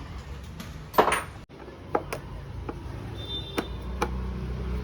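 Hand tools and metal parts clinking and knocking during motorcycle disassembly: a handful of separate sharp strikes, the loudest about a second in.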